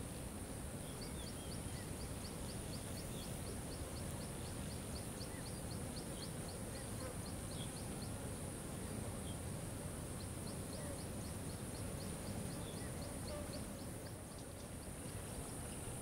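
Outdoor nature ambience: a steady low rumble with a faint high hiss, a rapid series of high ticks, about three or four a second, in two runs of several seconds each, and a few faint bird chirps.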